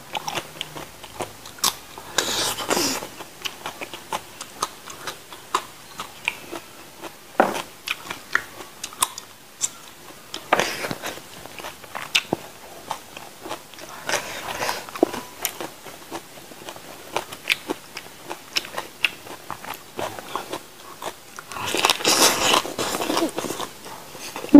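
Close-miked chewing and crunching of raw vegetables, with many small wet mouth clicks. Several louder crunching bursts stand out, the longest near the end.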